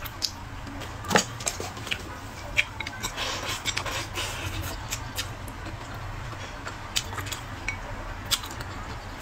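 Close-miked eating: wet chewing and lip smacks, with wooden chopsticks clicking against a ceramic bowl. A sharper click comes about a second in, and a denser run of mouth noise comes around the middle as food is pushed in from the bowl's rim.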